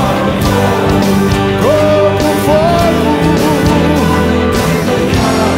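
Live worship band playing a rock-style song with electric guitars, bass and drums. A melodic lead line wavers over the sustained chords.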